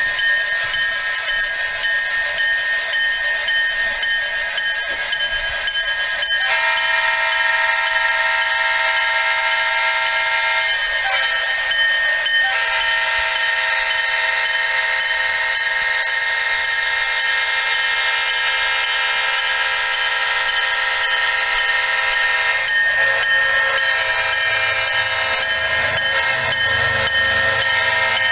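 Sound-equipped HO scale model diesel locomotives playing engine sounds through their small onboard speakers: a steady electronic drone with a high whine and no bass. Extra tones step in about six seconds in and again about twelve seconds in, then fall away about twenty-three seconds in.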